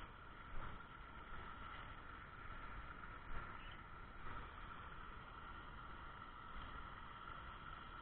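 Faint steady rushing of a waterfall, with a few light knocks from the camera being handled.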